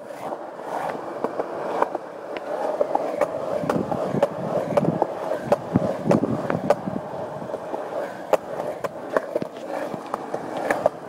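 Skateboard wheels rolling on concrete: a steady rumble broken by frequent sharp clicks.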